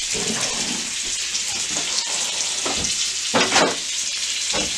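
Pork loins sizzling in butter in a frying pan: a steady, hissing fry.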